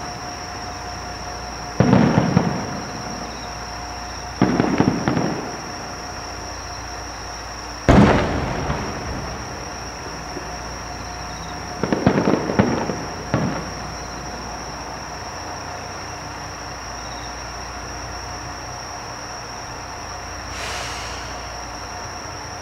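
Aerial fireworks shells bursting: about five booms in the first half, with the sharpest one about eight seconds in ringing out. Two of them are followed by rapid crackling.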